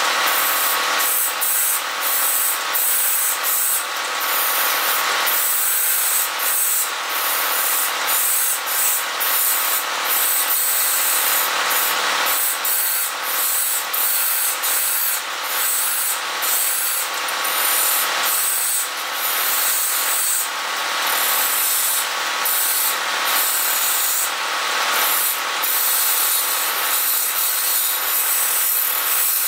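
A hand turning chisel cutting a spinning wooden blank on a wood lathe: a continuous rough hiss of shavings being peeled off, wavering and dipping briefly many times as the cut goes on, over the steady tone of the running lathe.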